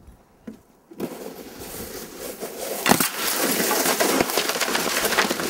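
Toboggan sliding fast down icy, crusty snow: a rough scraping hiss that starts about a second in and grows louder, with a sharp crack about three seconds in as it smashes through wooden frames.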